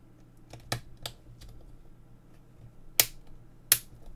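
Plastic housing of a Garmin GTM traffic receiver module being pressed shut by hand: a few light clicks, then two sharp snaps close together near the end as the snap-fit catches lock.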